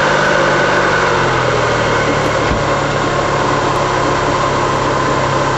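Car engine idling just after being started, running steadily with its pitch dropping slightly about a second in as the idle settles.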